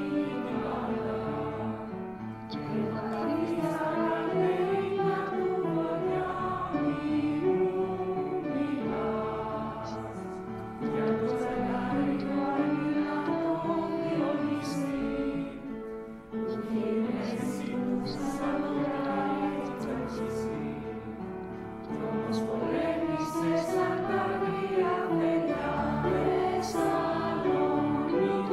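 A school choir singing a Greek song, sustained sung phrases with brief breaks between them.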